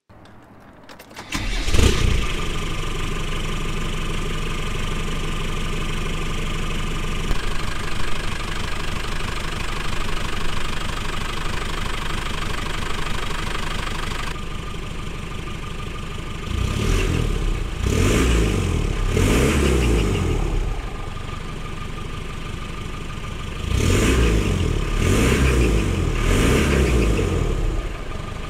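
Land Rover 200TDI 2.5-litre turbodiesel starting, catching about two seconds in, then idling steadily. It is revved in several short blips, once about halfway through and again near the end.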